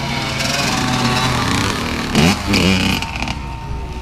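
Small motocross bike engines revving on a dirt track as the bikes ride past, with a sharp rev up and back down about two seconds in, then running more steadily and quieter toward the end.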